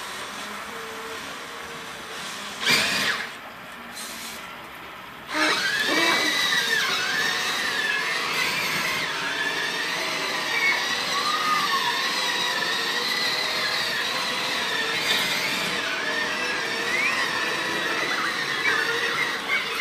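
Small electric motors and gearboxes of toy robots whirring as they drive, a high whine that wavers up and down in pitch. It comes in about five seconds in, after a short loud noise and a quieter stretch.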